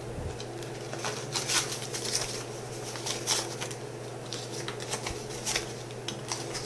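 US paper banknotes handled and counted out by hand: a run of short, crisp paper rustles and soft flicks as bills are separated and laid down, with the crinkle of a clear plastic binder pouch near the start.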